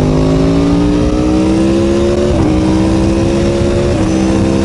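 Aprilia Tuono V4 1100 Factory's V4 engine through an Arrow exhaust, pulling hard under acceleration: the pitch climbs, drops sharply on an upshift about halfway through, climbs again and drops on a second upshift near the end.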